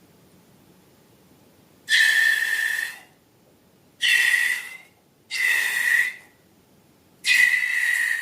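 Air squealing out of a stretched balloon neck, four times, each squeal about a second long at a steady high pitch, with short silent gaps between.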